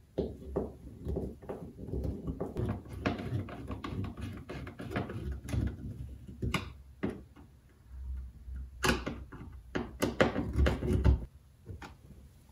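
The centre console of a 1986 Nissan 300ZX being handled, seated and screwed into place: an irregular run of knocks, clicks and rubbing, with a busier stretch of clicking and scraping from about eight to eleven seconds in.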